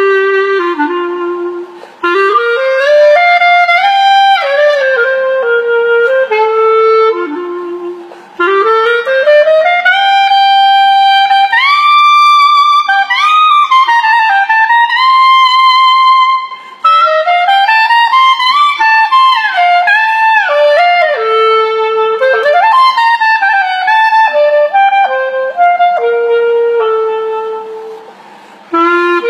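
Solo clarinet playing a lyrical melody in long phrases, sliding up and down between held notes, with short pauses between phrases.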